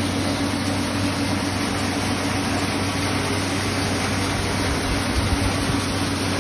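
Wheat cleaning and grinding machine running: a steady motor hum under an even rush of air from its blower and suction duct.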